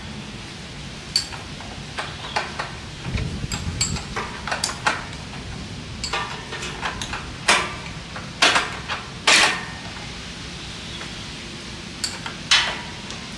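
Irregular metallic clinks and clanks of a spanner working bolts on a mini tiller's gearbox housing, with a dull low thump about three seconds in.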